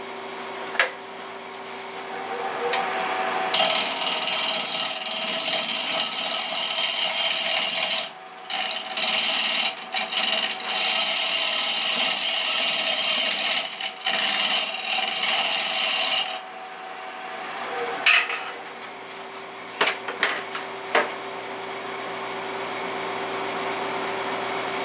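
Wood lathe running with a steady hum while a turning gouge cuts into a spinning yellow birch bowl blank. A rough, hissing cut starts about three seconds in and lasts to about sixteen seconds, with two short breaks as the tool comes off the wood. After that the lathe runs on with only a few light knocks.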